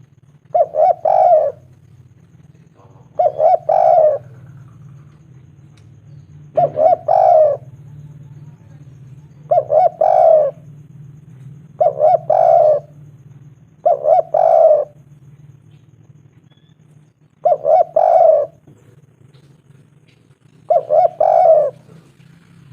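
Spotted dove (tekukur) cooing: eight short multi-note coo phrases, about one every two to three seconds, over a steady low hum.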